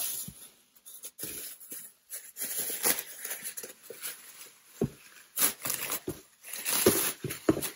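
Plastic wrapping crinkling and rustling in irregular bursts as plastic-wrapped chair parts are handled and lifted out of a cardboard box, with a few light knocks.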